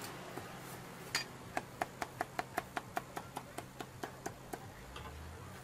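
Meat cleaver chopping crispy roast pork belly on a wooden chopping block: a single knock, then a quick, even run of about fifteen chops, roughly five a second, that fades out near the end.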